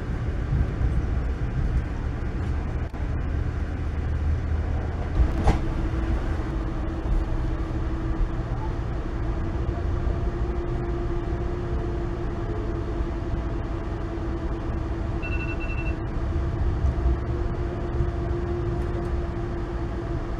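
Steady rumble of a moving Amtrak Northeast Regional passenger train, heard from inside the coach: wheels on the rails at speed. A single sharp knock comes about five seconds in, after which a steady hum carries on under the rumble, and a short high beep sounds about three-quarters of the way through.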